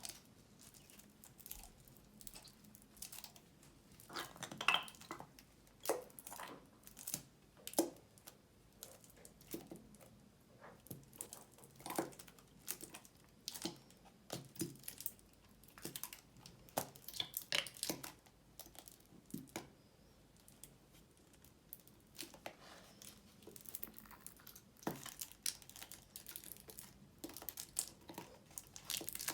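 Glue slime being mixed and handled by hand, making irregular soft crackles and sticky clicks.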